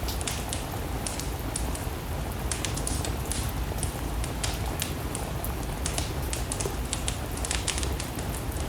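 Steady rain falling together with a wood fire crackling, with frequent sharp pops and snaps from the burning wood.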